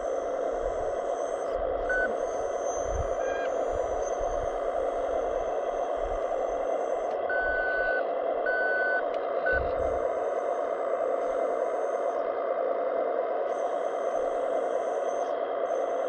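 Hydraulic pump of a radio-controlled model hooklift truck running steadily while the hook arm tips the container up, with a high whine that cuts out and comes back several times. A few short electronic beeps sound over it, two of them a little longer just before halfway.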